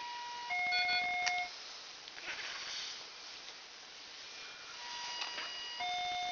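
Electronic two-note beep: a steady higher tone steps down to a louder, lower tone, each about a second long, and the pair sounds twice, about five seconds apart.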